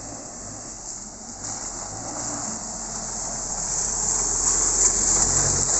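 Nissan Terrano 4x4 on mud-terrain tyres driving slowly along a dirt track, its engine running steadily and growing louder as it comes close, loudest about four to five seconds in.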